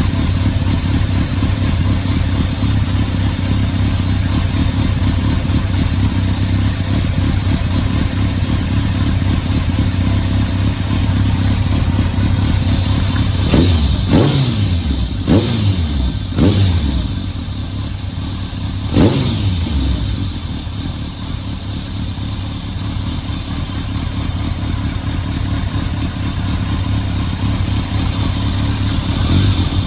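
Kawasaki ZRX1200S inline-four engine running through its replacement silencer, idling steadily. About halfway through, four quick throttle blips each rev up and fall back to idle.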